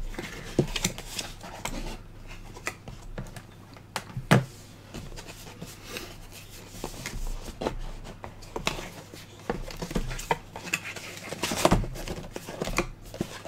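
Hands handling and opening a webcam's cardboard retail box: the outer sleeve is slid off and the box is turned over, with scattered taps, knocks and scraping. A louder knock comes about four seconds in and another near the end.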